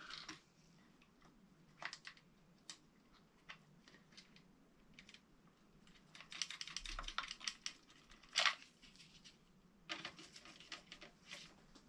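Faint scattered clicks and rattles of hands fitting wires and small parts into the air compressor's electrical box, in two busier flurries, with one sharper click about eight seconds in.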